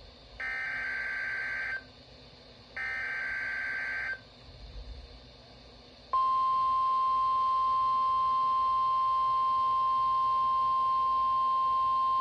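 NOAA Weather Radio Emergency Alert System signal. Two bursts of SAME header data, each a harsh buzzing warble about a second and a half long, are followed by a pause of about two seconds. Then the steady 1050 Hz warning alarm tone starts and holds, the signal that a warning-level alert follows.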